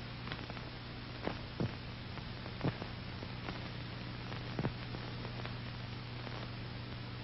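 Background noise of an old film soundtrack: a steady hiss and a low hum, with a few faint clicks and pops scattered through it.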